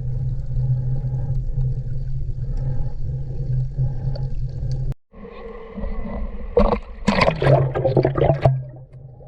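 Muffled underwater sound picked up by a submerged camera: a steady low hum for about five seconds. It cuts off suddenly, and then comes a run of loud bubbling and splashing bursts as the snorkeller goes back under the water.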